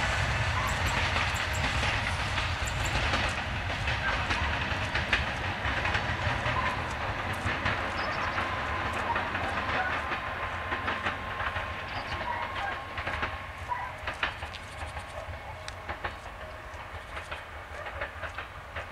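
TFC diesel multiple unit running away over station switches, its engine rumbling and its wheels clicking over the rail joints, fading steadily as it recedes.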